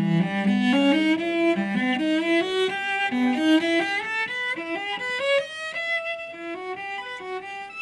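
Solo cello playing a quick melodic line of short notes that climb and fall through its middle and upper range.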